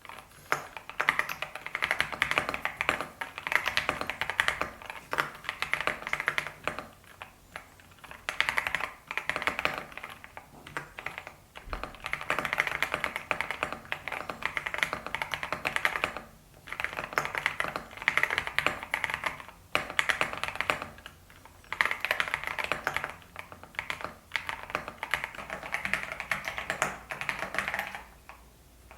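Fast typing on an EPOMAKER TH80 Pro V2 mechanical keyboard fitted with Mulan switches: dense runs of key clacks broken by brief pauses every few seconds.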